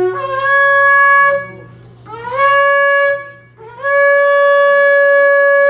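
Shofar blown in three blasts, each opening with a short upward swoop before settling on a steady tone; the third blast is the longest. It is sounded as the call the minister calls a prophetic call of cleansing.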